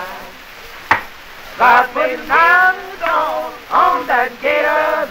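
A man singing in held, wavering notes broken by short pauses, with a single sharp click about a second in.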